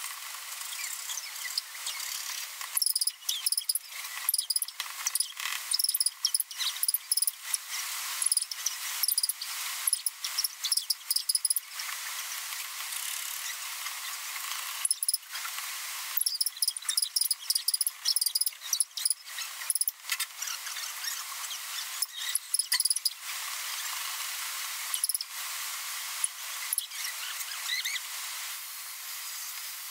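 A metal hand tool scraping and trimming formica laminate along slots in a laminated shelf board, in irregular runs of short squeaky strokes over a steady hiss.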